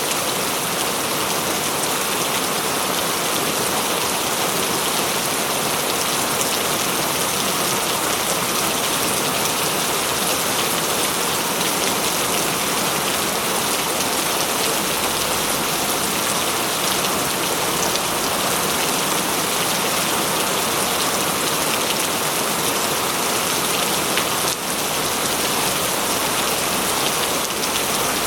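Steady rain falling in a forest, a dense, even patter of drops with no let-up.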